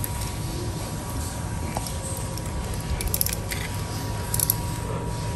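Faint handling noise of a stranded copper cable being worked by hand: a few light clicks and rustles of wire, over a steady low hum.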